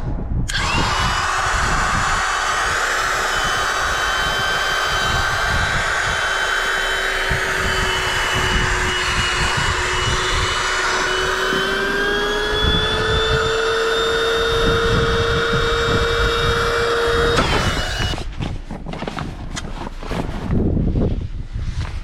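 Electric air pump of an inflatable car mattress switching on and running with a steady whine while inflating the mattress; its pitch rises partway through as the mattress fills, and it cuts off suddenly near the end. Irregular rustling and handling noises follow.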